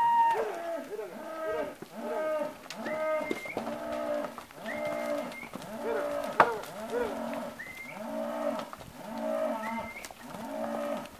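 Several young Hereford-type cattle mooing over and over, calls about once a second and often overlapping, with a sharp knock about six seconds in.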